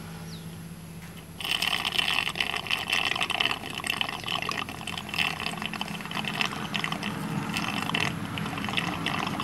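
Small electric honey suction pump running with a steady low hum while it draws stingless-bee honey out of the wax pots through a clear tube. About a second and a half in, a louder, uneven gurgling slurp of honey and air in the tube sets in.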